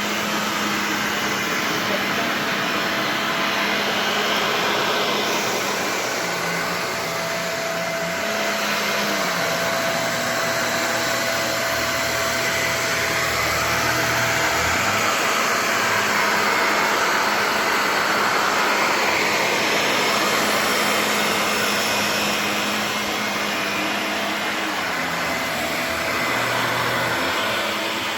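Shark Navigator Lift-Away upright vacuum running on the carpet setting, its brush roll working a shag rug. The steady motor noise shifts a little in its low hum every few seconds as the vacuum is pushed back and forth.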